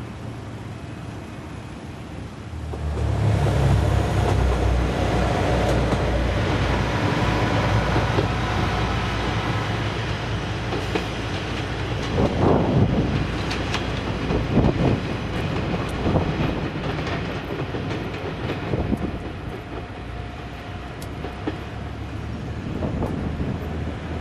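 Kanto Railway Joso Line diesel railcar passing, its engine rumbling low and its wheels clacking over rail joints. The train noise swells about two and a half seconds in and stays loud, with a run of sharper knocks near the middle.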